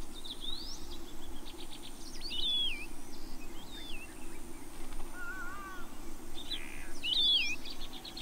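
Wild birds calling: repeated short, wavy whistled notes, some quick ticking trills, and a lower warbling call about five seconds in, over a steady low hum.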